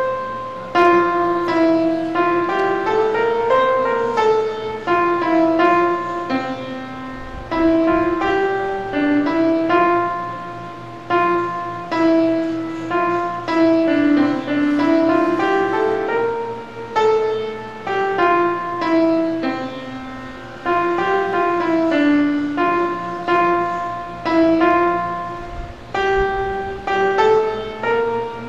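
Piano playing a hymn tune at a slow, steady pace: chords under a melody line, each note struck and then fading.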